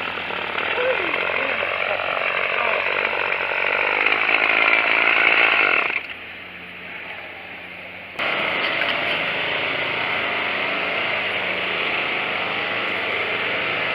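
A Tanaka TCG22 22 cc two-stroke string trimmer engine is running hard and steadily on its newly replaced carburetor. The engine sound falls away to a much quieter level about six seconds in and comes back abruptly about two seconds later.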